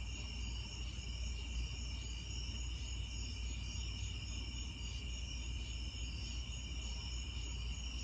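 A steady night-time chorus of insects trilling continuously in several high pitches, over a low steady rumble.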